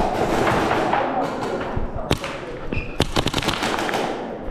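Airsoft guns firing: one sharp shot about two seconds in, then a quick string of shots around the three-second mark.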